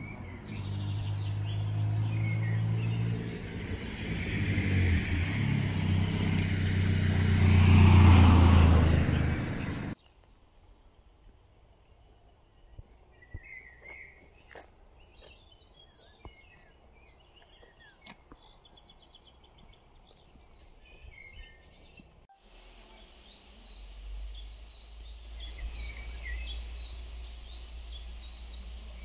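A motor vehicle's engine, growing louder to a peak about eight seconds in and cutting off abruptly about ten seconds in. After it, songbirds chirp in quiet surroundings, and near the end a bird sings a fast run of evenly repeated high notes over a low rumble.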